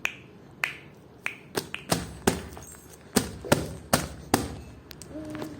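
A series of about a dozen sharp clicks at uneven spacing, some in quick pairs, with a brief low tone near the end.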